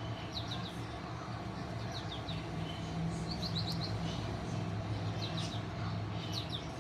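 American goldfinch calling: short bursts of three or four quick high chirps, about five times, over a steady low hum.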